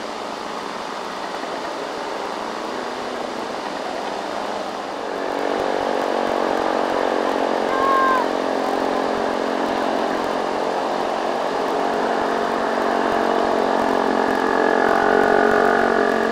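Diesel engine of a loaded Mitsubishi dump truck labouring up a long incline, getting louder from about five seconds in. A brief high chirp sounds about eight seconds in.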